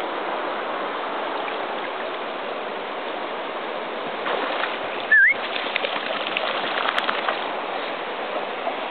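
Steady rush of flowing stream water, with a run of light clicks in the middle and one brief, loud rising whistle about five seconds in.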